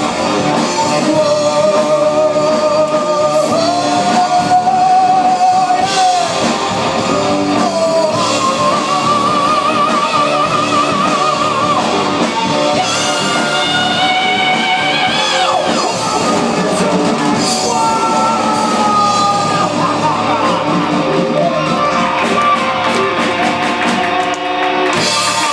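Live rock band playing, with a singer holding long wavering notes over guitar and drums in a large hall; the band stops just before the end.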